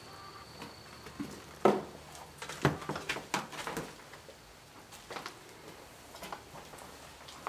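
Footsteps on a debris-littered floor: irregular knocks and scuffs, the sharpest about two seconds in, a quick run of them around three seconds, then a few lighter steps.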